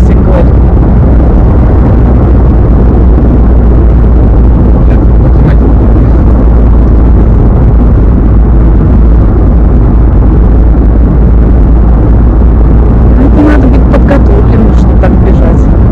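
Loud, steady rumble of a car driving, with road and wind noise heard from inside the car and heaviest in the low end.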